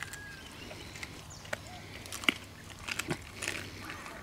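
Dogs, a Malamute and a Husky, eating roast vegetables and chicken off plates: a few sharp clicks and crunches of chewing, spread out a second or so apart.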